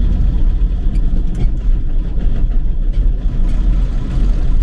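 Tractor engine running steadily with a deep, continuous rumble.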